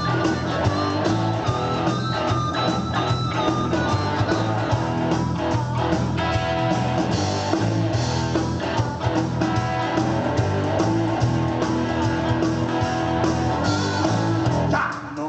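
Band music with no vocals, led by guitar over a steady beat.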